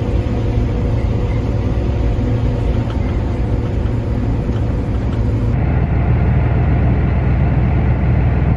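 Combine harvester running steadily during corn harvest, a loud low drone. About five and a half seconds in the sound changes abruptly to a duller, fuller drone.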